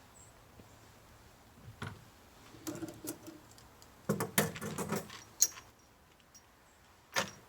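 Scattered light clicks, clinks and knocks of hands handling hardware and wood, with a louder cluster about four to five seconds in and a single sharp click near the end.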